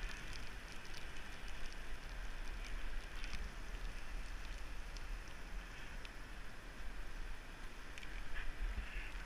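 Wind rumble on a bicycle-mounted action camera riding through rain, with a steady hiss of tyres on the wet road and scattered ticks of raindrops hitting the camera.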